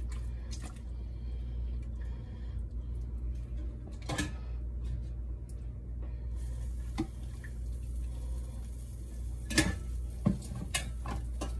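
Kitchen tongs clicking and clattering as pieces of chicken are placed into an air fryer basket, with a couple of sharper clacks near the end, over a steady low hum.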